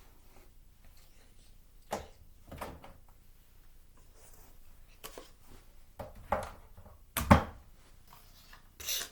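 Objects being handled: a scatter of short knocks and clicks, with the loudest, deepest thump a little past seven seconds in.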